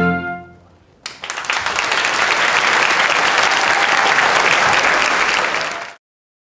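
An orchestra's final held chord dies away, and about a second later a large audience breaks into applause. The applause is cut off abruptly near the end.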